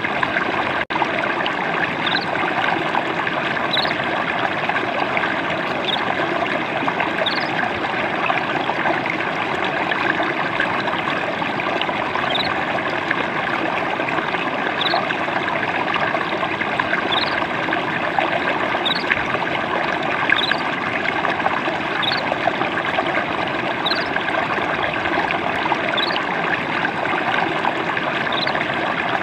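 Gently flowing water trickling and splashing steadily. A faint, short high chirp repeats about every second or so.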